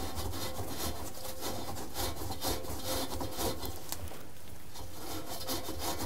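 Scrub sponge rubbing back and forth against the rubber door seal of a front-load washing machine in quick, repeated strokes, scrubbing mold and grime out of the gasket folds.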